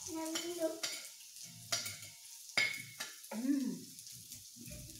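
Food sizzling on the hot top plate of an electric raclette grill, with several sharp clicks of forks tapping and scraping the plate as pieces are turned and taken.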